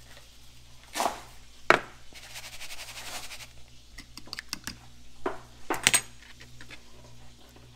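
Kitchen utensil clatter: a fork clinking and scraping in a small plastic bowl of egg-and-milk wash, with sharp knocks of things set down on the counter. The loudest knock comes just under two seconds in.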